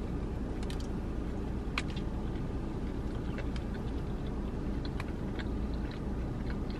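A person biting into and chewing a fried chicken sandwich on a toasted bun, with small scattered crunches and mouth clicks, over a steady low hum in a car cabin.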